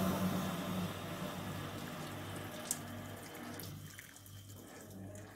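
Electric kettle: a fading hiss from its just-boiled water as it is lifted, a small click near the middle, then a thin stream of water pouring from it onto raw potato chips in a steel bowl, starting about four seconds in.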